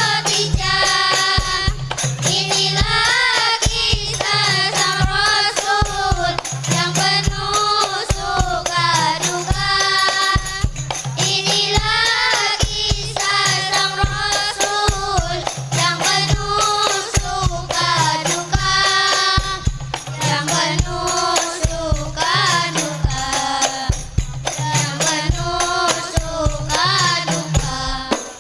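Voices singing a devotional melody over a steady, repeating beat of frame drums and tambourine jingles.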